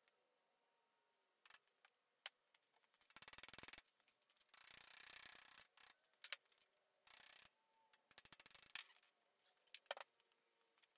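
Faint metallic clicking and rattling in short quick runs, with a brief scraping rasp about halfway, as a steel wheel shaft is worked out of a go-kart's hub and A-arm assembly.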